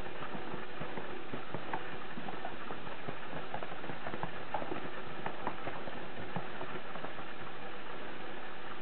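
Cats playing with a feather wand toy on carpet: light, irregular taps and scuffles scattered throughout, over a steady hiss.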